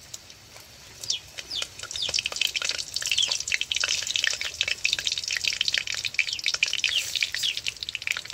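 Dried red chillies sizzling and crackling in hot oil in a kadai. The spattering starts about a second in and quickly becomes a dense, rapid crackle.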